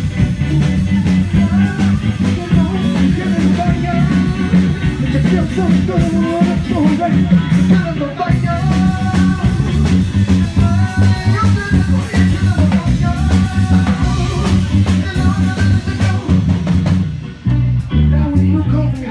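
Loud live band music, amplified through a club PA: electric guitar, bass and drum kit with a singing voice, in a funk and reggae style, with a heavy bass line. Near the end the music briefly drops away, then the bass comes back in.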